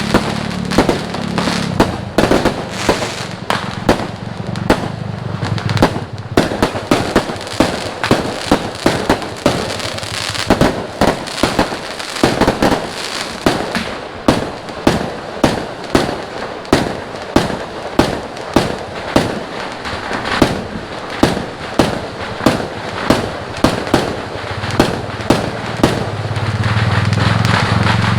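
Fireworks going off in a steady string of sharp bangs, about two a second, over a continuous crackle. Near the end a steady low hum grows louder under the bangs.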